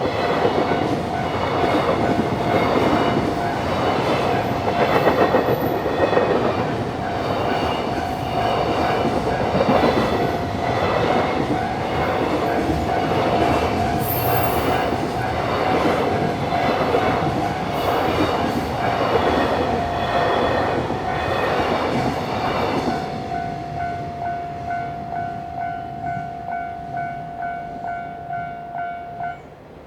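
Freight train wagons rolling past on the Sanyo Main Line with rhythmic wheel clatter over the rail joints, while the level-crossing warning bell rings. The train clears about 23 seconds in, leaving the bell's steady clanging at about two strokes a second, which stops abruptly near the end.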